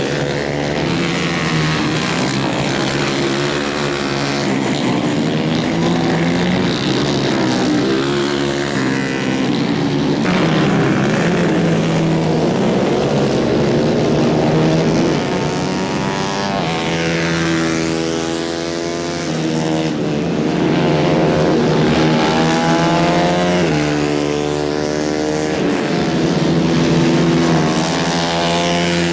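Small 150 cc racing kart engines running hard as karts lap the track. Their pitch rises and falls repeatedly as they accelerate out of corners, back off and pass by.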